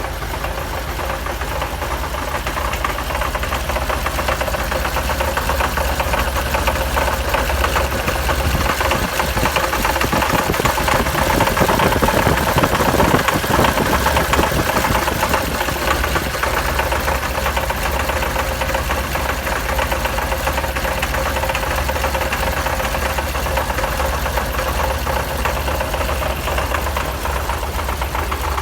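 Fully tuned Nissan L28-based straight-six engine on Solex carburettors idling, with a brief rise in revs about ten seconds in before it settles back to idle. It carries an abnormal mechanical knocking noise, which the owner takes for tappet noise.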